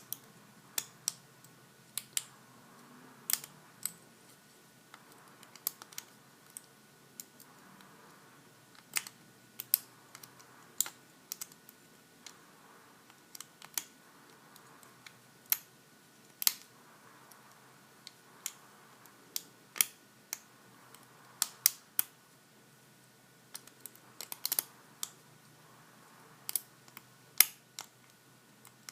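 Lock pick and tension wrench working in the keyway of a Master Lock 410 lockout-tagout padlock: small, sharp metallic clicks and ticks at an irregular pace, roughly one a second, some in quick little clusters.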